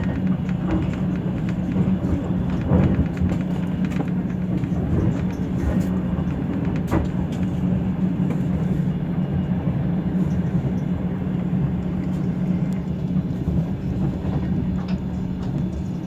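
Steady rumble of a train running at speed, heard from inside the carriage, with a few sharp clicks.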